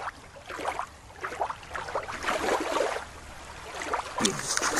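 Underwater ambience: faint, irregular bubbling and small clicks. Near the end, a creek's rushing water comes in.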